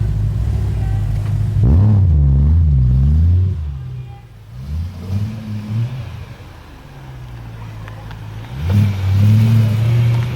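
High-performance car engine with an aftermarket exhaust revving: a sharp rev about two seconds in that holds for a moment and drops, a few short throttle blips, and a second rev near the end.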